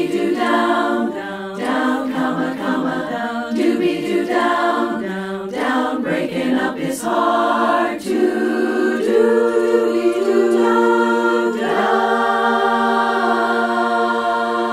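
Women's barbershop chorus singing a cappella in four-part close harmony, moving through short chords, then holding one long final chord over the last few seconds.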